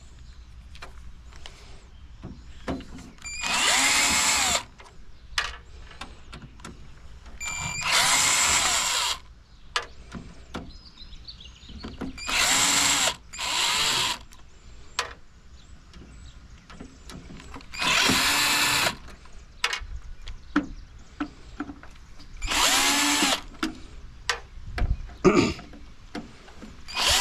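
Cordless power drill backing screws out of a computer tower case: short whirring runs of about a second each, spinning up and down, repeated about six times. Small clicks and knocks of metal parts and screws being handled come between the runs.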